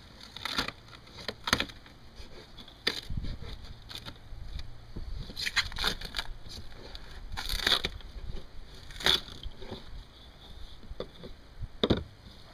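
Water-rotted thin plywood skin of a trailer bunk being pried and torn off its styrofoam core by hand: a series of irregular cracking and tearing rips, the loudest in the second half.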